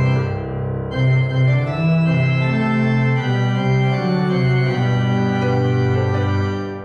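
Instrumental music of slow, held chords that change about once a second, dipping briefly in loudness near the start.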